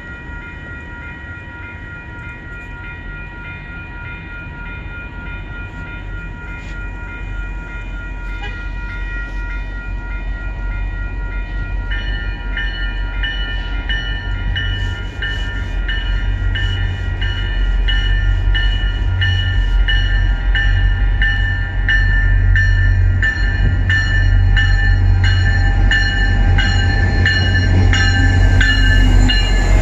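EMD F40PH-3C diesel locomotive approaching at the head of a commuter train, its low engine rumble growing steadily louder as it nears. Over it a bell rings steadily, turning into a clearer, louder repeating ding from about twelve seconds in.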